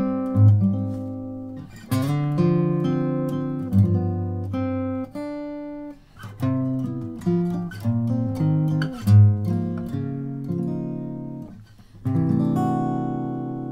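Martin 000-15M all-mahogany acoustic guitar played fingerstyle in a chord-melody style: plucked melody notes over chords. About twelve seconds in, a chord is struck and left to ring, slowly fading.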